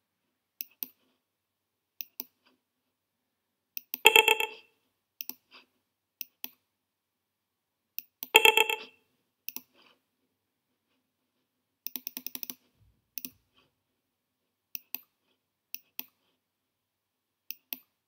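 Computer mouse clicking: single sharp clicks every second or two and a quick run of clicks about twelve seconds in. Two louder sounds, each lasting about half a second, come about four and eight seconds in.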